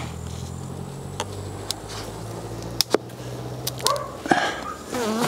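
Homemade stainless-steel hive tool prying at a stuck box of a stacked hive: a handful of sharp clicks and cracks over a low steady hum. Near the end honeybees start buzzing close by.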